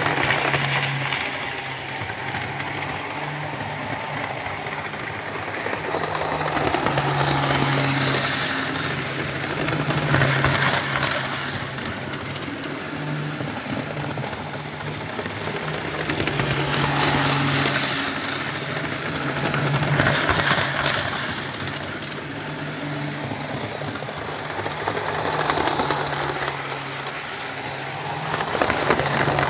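Model railway trains running round a layout, model class 67 diesel locomotives hauling coaches: a steady electric-motor hum with wheels rattling on the rails, swelling and fading every few seconds as the trains pass close by.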